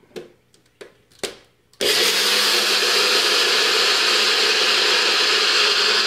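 A few clicks as the cup is seated on a Nutribullet personal blender, then just under two seconds in its motor starts suddenly and runs steadily, grinding flaxseed into meal.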